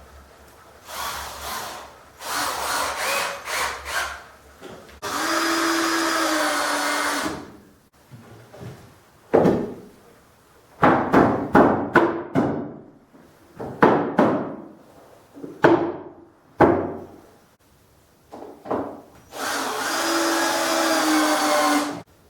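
A handheld power tool runs in two bursts of about two seconds each, its pitch sagging slightly as each one ends. Between the bursts comes a series of sharp knocks on wood.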